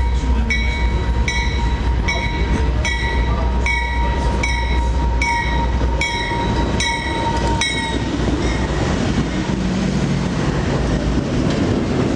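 Diesel-hauled freight train approaching and passing close by: a deep engine rumble and a bell ringing about one and a half times a second, which stops about two-thirds of the way through, giving way to the rumble and clatter of the locomotive and freight cars rolling past.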